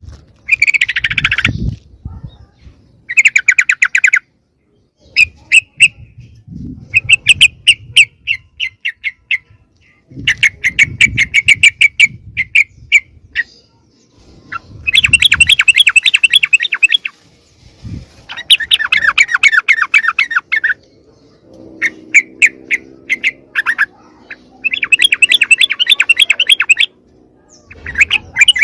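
Yellow-vented bulbuls (trucukan) giving noisy, harsh chattering calls in rapid bursts of a second or two, one after another. This is the agitated call used as a lure to draw wild bulbuls in. In the second half a lower, steady pitched sound runs under the calls for several seconds.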